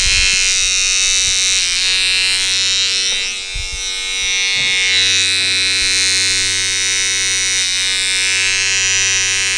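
Electric hair trimmer buzzing steadily while it cuts a line-up along a boy's hairline, briefly quieter about three and a half seconds in.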